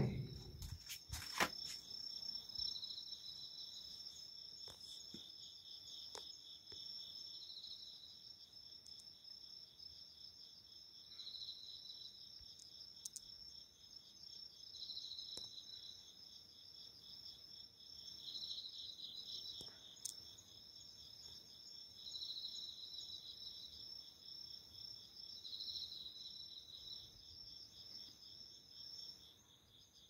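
Autumn night insects singing in chorus: a steady high trill, with a second, slightly lower chirping song that swells about every three to four seconds. A few sharp knocks in the first couple of seconds.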